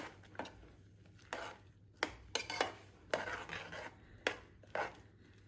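A metal spoon stirring chickpeas and potato chunks in an aluminium saucepan, scraping and clinking against the pan in irregular strokes.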